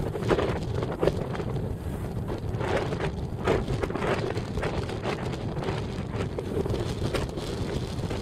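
Strong wind of about 10 m/s buffeting the microphone in uneven gusts, a rough rumbling rush.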